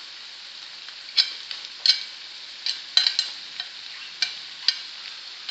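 Minced beef, onion and spices sizzling steadily in a frying pan, with a scattering of sharp clicks and taps as chopped green bell pepper goes in from a cutting board.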